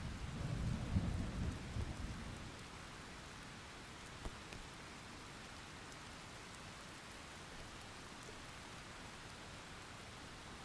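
A thunderstorm: a low roll of thunder rumbles and fades over the first two seconds or so, then steady rain hisses on, with a single sharp drip or tap about four seconds in.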